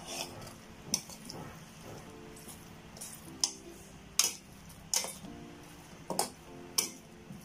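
Metal spoon stirring and turning tofu cubes in a stainless steel pot, clinking against the pot about nine times at an uneven pace.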